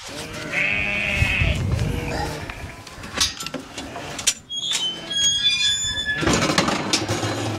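Merino lambs bleating, a wavering call in the first couple of seconds and another near the end, with a few sharp clicks and knocks in between.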